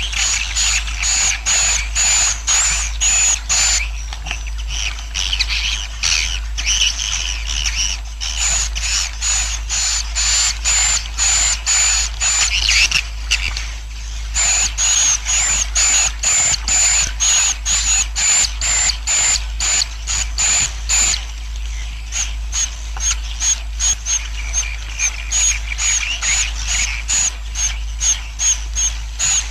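Swiftlet colony twittering: rapid, repeated high chirps about three a second, in runs broken by brief pauses, over a steady low hum. It is a 'suara inap' roosting call, played to draw swiftlets to settle in a swiftlet house.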